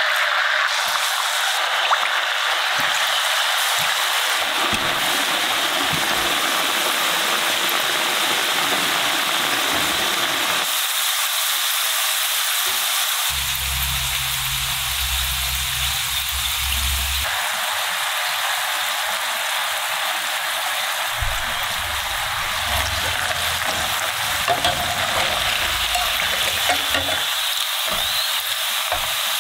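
Oil sizzling and bubbling steadily as rolled potato slices deep-fry in a pan, with a few light clicks near the end.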